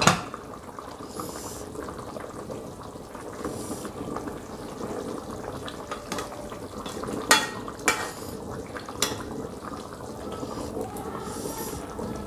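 Smoked fish in coconut-milk sauce simmering in a wok, a steady bubbling hiss, with a metal ladle stirring and clinking against the pan three times about seven to nine seconds in.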